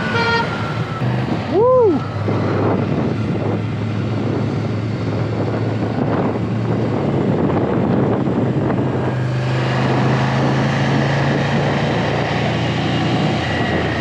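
Ducati Scrambler motorcycle engine running steadily at riding speed, with road and wind noise, as heard from the moving bike. The rider gives one short "Woo!" about a second and a half in.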